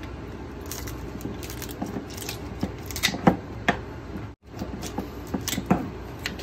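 Kitchen shears cutting through Dungeness crab shell: irregular crunches and sharp clicks as the blades snap through the shell, with pieces handled on a wooden cutting board. The sound cuts out briefly just over four seconds in.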